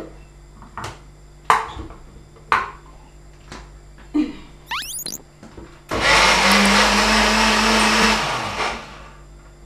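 Countertop electric blender running for about two seconds on peppers and crayfish in water, a short burst that leaves them roughly blended, then winding down. A few light knocks come before it starts.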